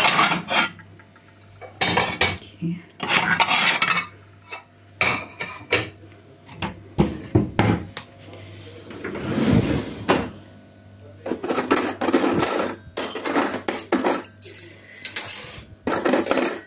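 Ceramic plates clinking against each other as they are taken from a stack. Later comes a run of metal cutlery rattling in a kitchen drawer as spoons and forks are picked out.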